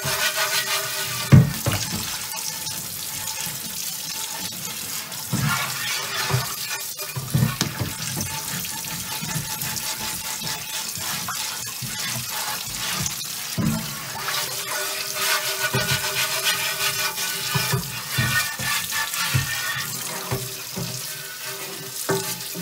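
A kitchen tap running into a cast iron oval roaster in a stainless steel sink, while a chain mail scrubber scrapes over the pan to work off baked-on barbecue sauce. Scattered short knocks come from the pan and scrubber.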